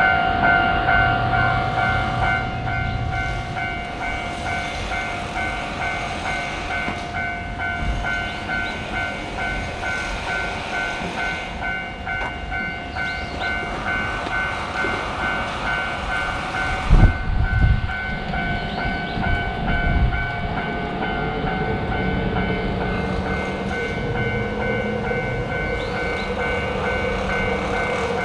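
Railway crossing warning bell ringing on and on over the rumble of a train running past. One sudden thump comes about seventeen seconds in.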